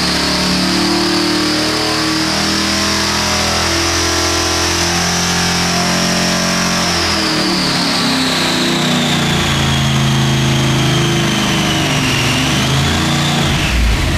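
Supercharged 588-cubic-inch Chrysler Hemi running loud on E85, its revs held around 4,200 rpm for the first half and then coming down to about 2,700 rpm. A high blower whine sits over the engine note and falls in pitch as the revs drop.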